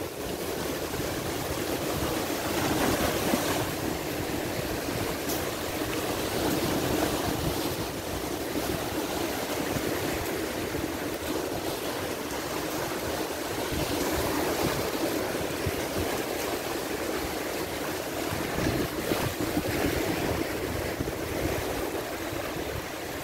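Red Sea waves breaking and washing over a rock revetment, with strong wind buffeting the microphone; the sound swells and eases every few seconds as the waves come in.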